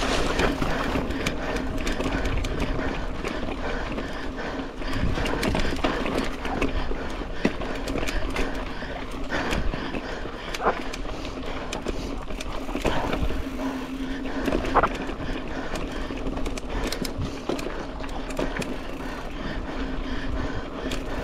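Mountain bike riding fast along a dirt race trail: continuous tyre and wind noise with a low steady hum, broken by scattered sharp clicks and knocks as the bike rattles over the rough ground.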